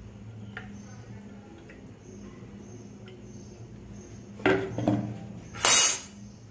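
Kitchen clatter beside a frying pan on the stove: a steady low hum, then from about four and a half seconds in two knocks and a loud sharp clunk of a utensil or container being handled and set down.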